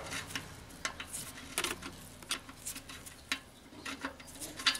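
Faint, irregular light metallic clicks and scrapes as a new oxygen sensor is turned by hand into the threaded bung of the exhaust pipe.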